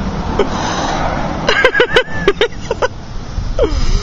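Short quick bursts of a man's voice, with a steady low rumble underneath.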